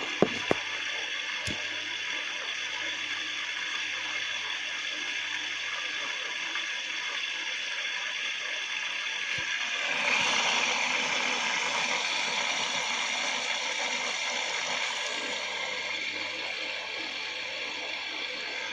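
Bosch washing machine taking in water for the rinse: a steady hiss of water running in, with a few clicks at the start. The hiss grows louder and brighter about ten seconds in.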